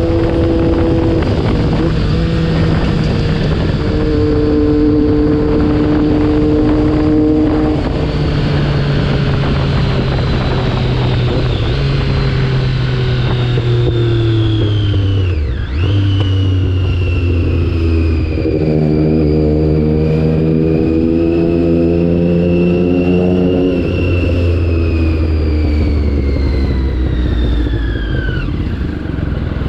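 Triumph Daytona 675R's inline-three engine with a Yoshimura Alpha full exhaust, heard under heavy wind blast on the microphone while riding. The engine note holds steady, then steps up and down in pitch several times.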